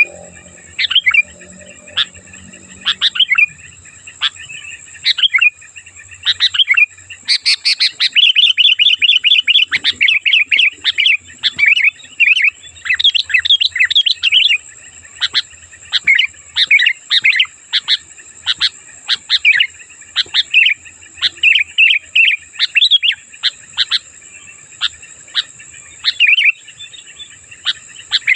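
Sooty-headed bulbuls calling: short, sharp notes repeated over and over, thickening into rapid chattering from about seven to fifteen seconds in. A steady high whine runs underneath.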